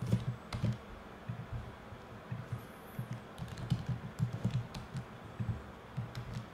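Typing on a computer keyboard: irregular keystrokes, several a second, as code is edited.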